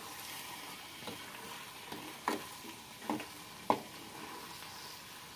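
Butter sizzling in a metal pot as it finishes clarifying into ghee, with moringa and betel leaves frying in it. A spoon stirs it, knocking against the pot a few times.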